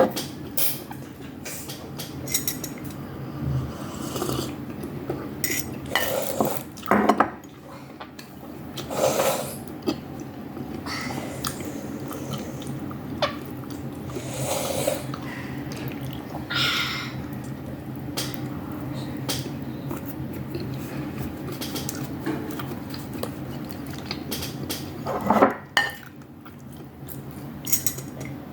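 Close-miked eating sounds: chewing, with scattered clinks of cutlery against dishes, over a steady low hum.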